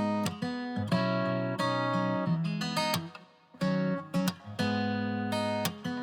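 Acoustic guitar music, strummed and plucked chords changing every half-second or so.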